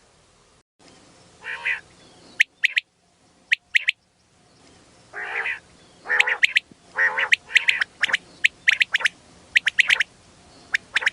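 Female common quail calling: many short, sharp high-pitched notes in quick pairs and threes, mixed with several longer, lower rasping calls, denser in the second half.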